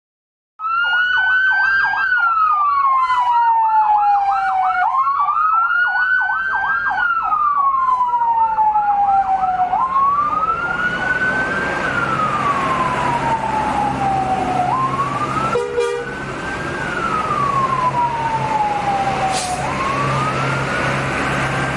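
Electronic siren on a convoy vehicle sounding a slow wail: each cycle climbs quickly and then slides down for several seconds, about every five seconds. For roughly the first ten seconds a second, fast-warbling siren tone runs over it. Passing bus engines hum underneath.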